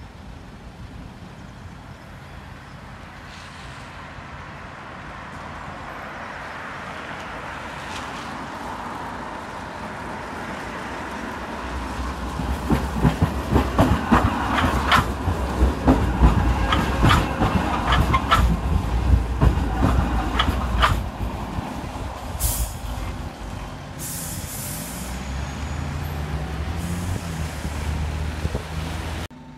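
Sheffield Supertram light-rail tram approaching and passing close by, building to a loud rumble with sharp wheel clicks as it crosses the track joints and points. Afterwards come a couple of short hisses and a lower tram motor hum that rises in steps near the end.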